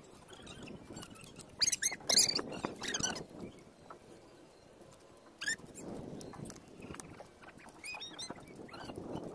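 Loose beach stones clacking and scraping as rocks are turned over and shifted by hand, with a cluster of sharp clicks a couple of seconds in and another single click about halfway through.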